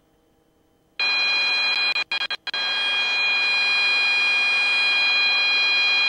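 Robinson R22's low rotor RPM warning horn, a loud steady tone that starts abruptly about a second in and cuts out briefly twice soon after. It signals rotor RPM rolled down to about 92%, below the horn's trigger point, with the governor off.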